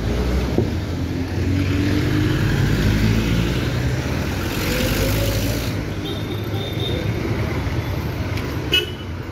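Street traffic: vehicle engines running and passing close by, one pitch rising and falling as it goes, with a brief horn toot about two-thirds of the way in.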